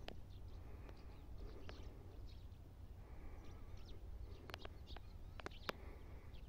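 Faint outdoor ambience: a low wind rumble with small birds chirping faintly now and then, and a few soft ticks about four and a half to six seconds in.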